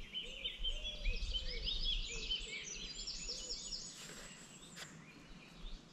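Birds singing: a run of quick, high chirping notes that fade out after about four seconds, with fainter lower notes under them.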